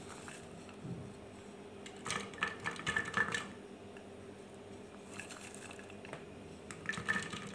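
Peeled garlic cloves dropped by hand into a plastic blender jar, clattering and tapping against the plastic in two bursts of small knocks, about two seconds in and again near the end, over a faint steady hum.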